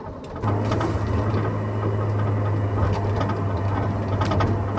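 Mercedes SLK under way, with a steady low drone from the car and scattered knocks and rattles from the rear, starting about half a second in. The rattle comes from the exhaust, whose right-side rubber hanger has slipped out.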